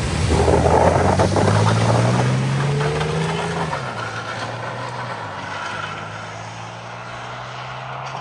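A road vehicle driving through a flooded ford, water splashing loudly around it. Its engine rises in pitch over the first few seconds, then settles to a steadier note that fades away near the end.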